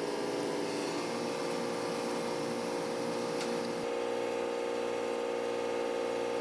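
Surface grinder running with a steady motor and wheel hum and coolant flowing over small steel keys being ground. About four seconds in the coolant stops while the machine keeps humming.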